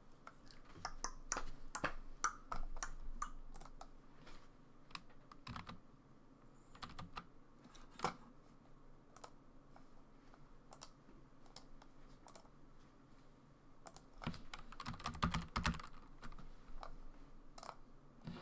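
Typing on a computer keyboard: a quick run of key presses about a second in, scattered single clicks after that, and another fast run near the end.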